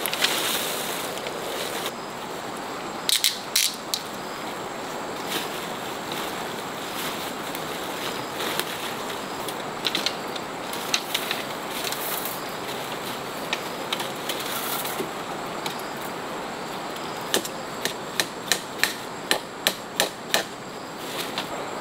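Hammer driving nails into wooden poles and a tree trunk to fasten a plastic tarpaulin: scattered single blows, then a quick run of about ten strikes, some three a second, near the end.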